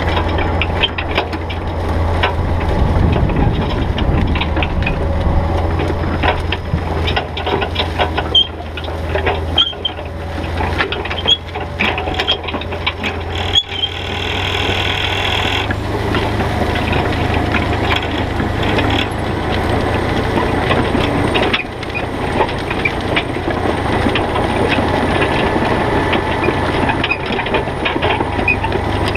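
Kuhn Discover XM disc harrow working soil behind a Kirovets K-700A tractor: its discs and frame rattle and clatter with many small knocks over the steady run of the tractor's diesel engine. About halfway through there is a brief harsher scraping.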